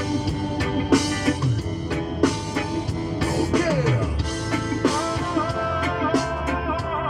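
Music: a song with a steady drum beat, held instrument notes and low bass notes that glide downward a few times.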